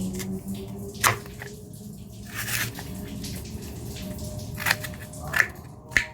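Kitchen food-preparation sounds: water dripping and splashing with a brief rush of water, and a sharp knock about a second in with three more near the end.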